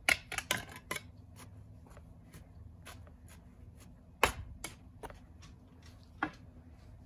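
Scattered knocks and clicks of hands-on gardening work, soil being added around the base of a potted sugar apple tree. A quick run of knocks comes in the first second, a louder knock about four seconds in and another near six.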